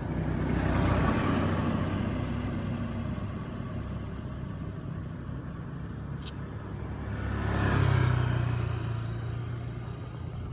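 Two road vehicles passing by, each swelling up and fading away, the first about a second in and the second about eight seconds in, with a single sharp click between them.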